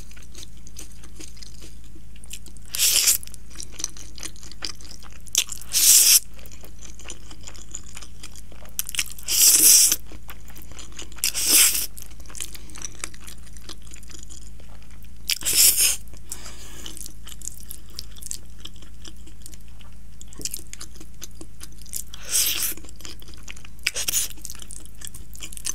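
Close-up mouth sounds of eating creamy cheese spaghetti: wet slurps and chewing, heard as about six short, hissy bursts a few seconds apart over a steady low hum.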